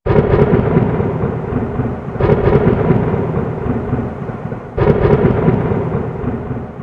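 Thunderstorm sound effect: three peals of thunder, each starting with a sharp crack and rolling away, about two and a half seconds apart, fading out near the end.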